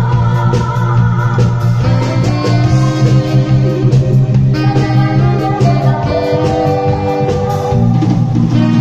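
Live band playing a cha-cha tune: an organ-toned electronic keyboard carrying the melody over guitar and a drum kit keeping a steady beat.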